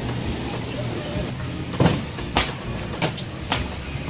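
A steady low hum with a few sharp clicks and knocks in the second half, the strongest two about half a second apart.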